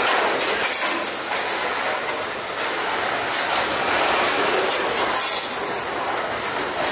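Freight train cars rolling past close by: the steady noise of steel wheels running on the rails.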